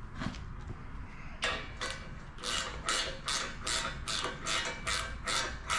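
Ratcheting wrench clicking on a header bolt as it is run down against the cylinder head. About a second and a half in it settles into an even stroke-and-click rhythm, roughly two and a half clicks a second.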